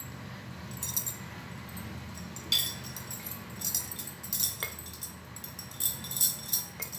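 Glass and metal bangles clinking and jingling on the wrists several times, in short spells, while dough is rolled out with a wooden rolling pin on a board. A low steady rumble runs underneath.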